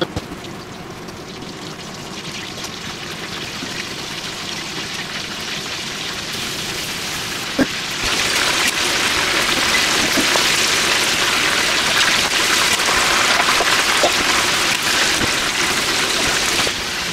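Breaded pork cutlets deep-frying in a pot of oil: a steady sizzle with fine crackling. It is fainter at first and gets much louder about halfway through.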